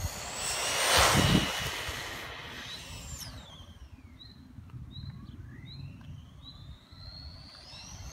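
LRP Shark 18 1:18 electric RC on-road car's motor whining at high speed. It passes close by about a second in, and its pitch falls steeply afterward. The high whine then climbs again steadily as the car speeds up for another run.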